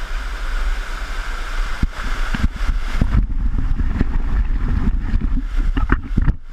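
Waterfall water rushing and splashing right against the microphone, with a deep buffeting rumble and irregular knocks and splashes.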